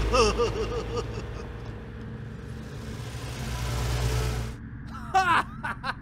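Truck engine sound effect running steadily, then cutting off about four and a half seconds in. Short warbling cartoon squeaks come at the start and again near the end.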